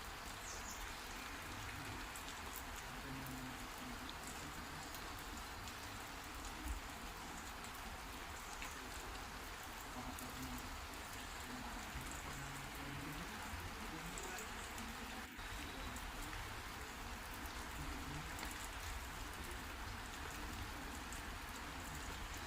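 Heavy rain falling steadily, an even hiss of drops on surfaces.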